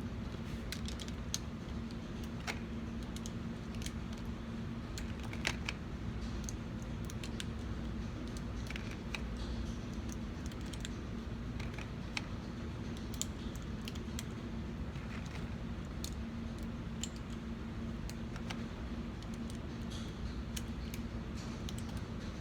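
Light, irregular metallic clicks of 9mm cartridges being handled and pressed into a 1911 pistol's magazine, over a steady low hum.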